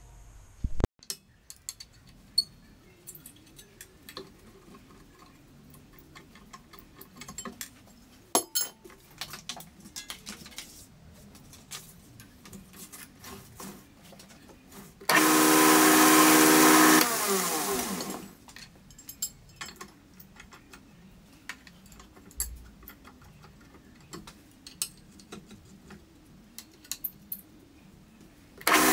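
Belt grinder switched on for about two seconds, its motor and belt running with a steady hum and whir, then cut off and coasting down in pitch. Scattered clicks and knocks of metal parts being handled come before and after. The grinder starts up again near the end.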